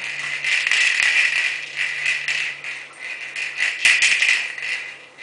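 Irregular rattling and jingling as a dog tugs and shakes a hanging rope-and-strap toy, swelling and fading several times with a sharp click near the end, over a faint steady low hum.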